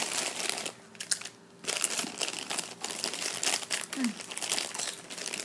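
Plastic Doritos chip bag crinkling as hands rummage in the opened bag and pull chips out, with a short lull about a second in.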